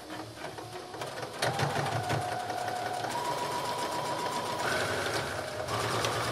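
Electric sewing machine sewing a straight-stitch hem. A few light clicks come first, then about a second and a half in the motor starts and runs steadily, its whine shifting in pitch a few times as the sewing speed changes.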